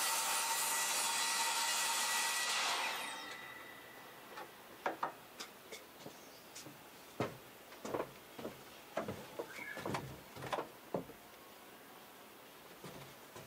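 Electric miter saw cutting through a wooden board, its motor running with a steady whine for about three seconds and then spinning down. After it, a scattering of sharp knocks and clatter as wood is handled.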